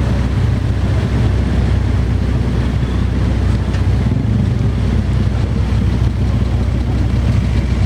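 An old car's engine running with a steady, loud low rumble.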